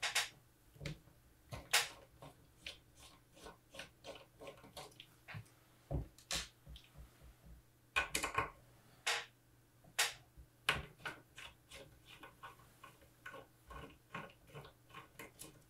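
Small screwdriver working the screws on the back of a metal astronomy camera: an irregular string of light clicks and ticks, with a few louder knocks now and then.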